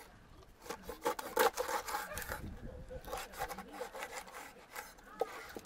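Kitchen knife cutting a flounder into pieces on a wooden cutting board: a run of uneven knocks as the blade meets the board, with scraping and rubbing of the blade through the fish between them.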